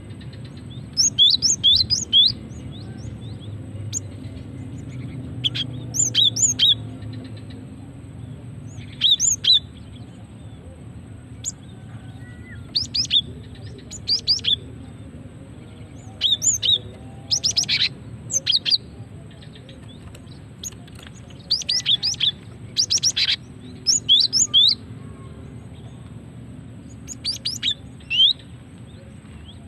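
Female cinereous tit (gelatik batu) calling: short clusters of two to five sharp, high notes, each sweeping downward, repeated every one to three seconds. A faint low hum runs underneath.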